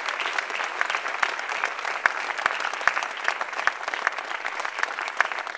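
Audience applause: a dense, steady patter of many hands clapping, with a few single claps sharper than the rest.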